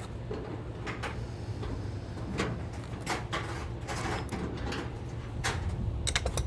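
Scattered metal knocks and scrapes as a Model A engine hanging from a hoist is pried and shifted into place, over a steady low hum.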